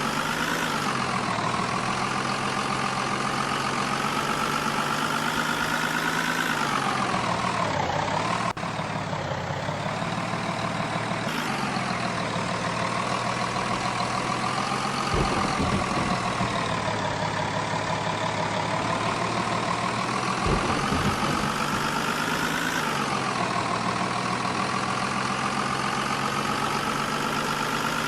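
Vehicle engine running while driving, its pitch slowly rising and falling back as it changes speed, with a couple of brief low thumps in the middle.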